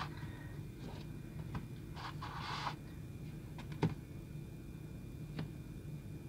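Light handling sounds from a small diecast model car being moved and set down on a tabletop: a few small clicks and a short scrape, over a steady low hum.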